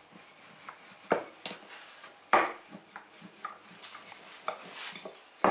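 Wooden rolling pin working thin egg-noodle dough on a floured wooden board: low rubbing and rolling, with a few sharp wooden knocks, the loudest near the middle and at the very end.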